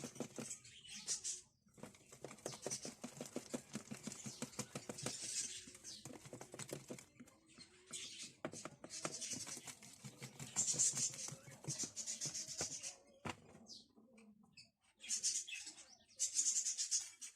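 Cake batter being mixed by hand in a bowl: quick, regular scraping and tapping strokes of a utensil against the bowl, stopping briefly now and then.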